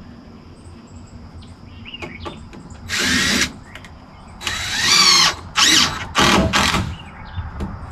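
Power drill driving screws into a framing board, in four short runs, the second and longest rising in pitch as the motor speeds up.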